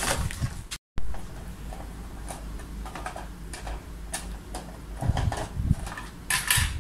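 Irregular small plastic clicks and rattles as the hull of a Heng Long King Tiger RC tank is handled and its battery compartment on the underside is opened, with a few duller knocks about five seconds in.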